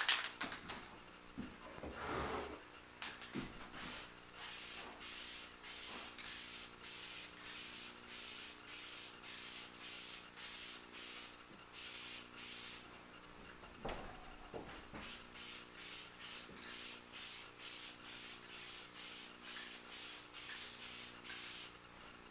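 Aerosol can of spray lacquer spraying a second coat onto the cedar chest: short hisses, about two a second, in two long runs with a brief pause near the middle.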